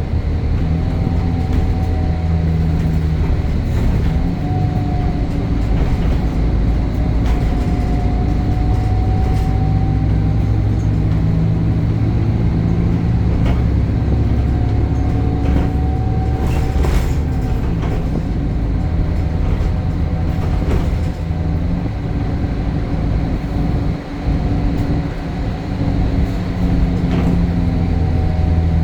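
Temsa Avenue LF 12 city bus with a DAF diesel engine and ZF gearbox driving, the engine note rising and falling as it pulls away, changes gear and slows. A higher whine glides up and down with it, and occasional clunks and rattles come through the body.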